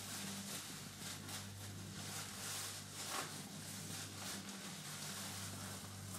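Ride inside a moving ropeway gondola cabin: a steady low hum under a faint airy hiss that rises and falls.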